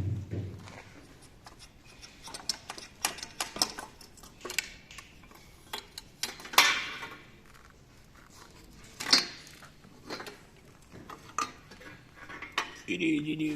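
Metal hand tools and engine parts clinking and knocking, with scattered clicks and two louder metallic knocks about six and nine seconds in.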